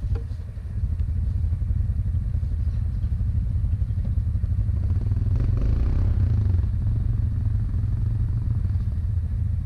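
ATV engines running at low speed, with a brief rise in engine noise about five seconds in.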